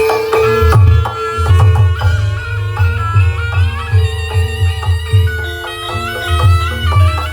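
Javanese barongan accompaniment music: a shrill reed-pipe melody over heavy low drum beats, about two a second.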